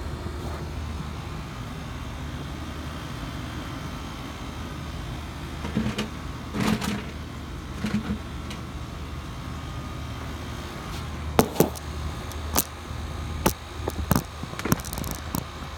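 A steady low outdoor rumble, with no thunder heard. Over it come a few soft bumps midway and a run of sharp clicks and knocks near the end, the handling noise of a phone being swung around while it films.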